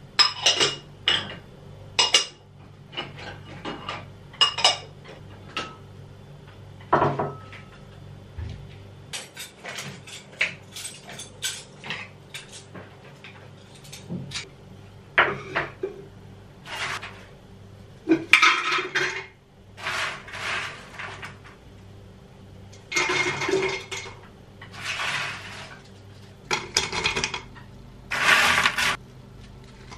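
Clean dishes and cutlery being unloaded from a dishwasher and put away: irregular clinks of crockery and pots set down, with several longer jangling clatters of silverware handled in bunches.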